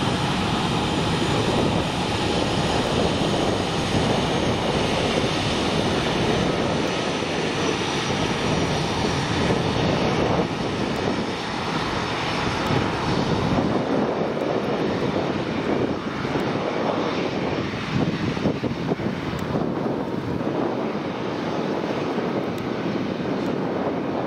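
Airbus A319 airliner's jet engines running at taxi power as it taxis past, a steady rushing drone with a faint high whine in the first half.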